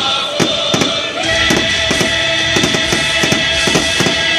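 Fireworks bursting overhead in irregular sharp bangs and cracks, a few a second, over loud music with long held notes.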